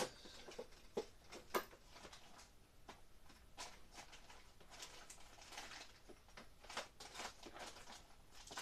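Tools and a blue power tool being handled and packed away in a plastic tray: a sharp click at the start, a couple of knocks in the next second and a half, then light scattered clicks and rustling.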